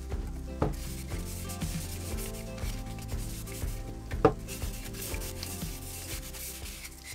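Cloth rag rubbing wood stain along a wooden hinge arm: a rough, repeated swishing of cloth on wood, with a couple of light knocks from the can and wood handled on the bench. Background music plays under it.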